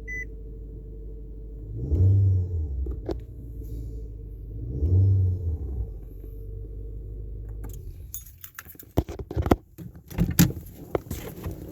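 2014 Nissan Altima's engine idling just after a push-button start, revved briefly twice, then shut off about eight seconds in. After it stops come sharp clicks and knocks and a jingle of keys; a short beep sounds at the very start.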